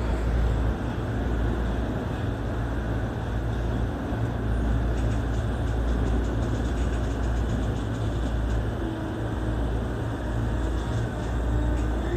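Toei 10-300 series electric train running on the rails, heard from inside the front car: a steady low rumble of wheels and running gear.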